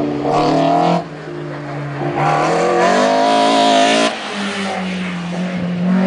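Slalom competition car's engine revving hard under acceleration. The revs dip about a second in, climb steadily, then drop sharply just after four seconds, as at a gear change or lift-off.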